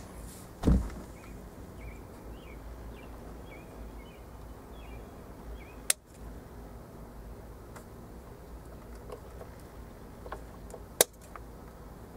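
Scissors snipping through stereo harness wires: two sharp snips about five seconds apart, the second one louder. A dull thump comes about a second in, and faint bird chirps can be heard in the background.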